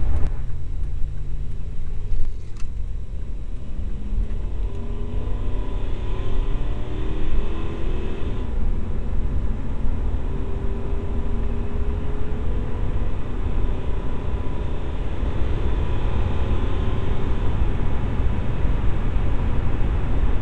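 Pickup truck engine and road noise heard from inside the cab, with a heavy low rumble. The engine note rises over the first several seconds as the truck picks up speed, then holds steady at cruising speed. There is a brief knock about two seconds in.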